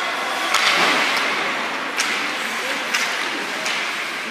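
Ice hockey game in an arena: a steady rush of rink and crowd noise, broken by three sharp knocks on the ice.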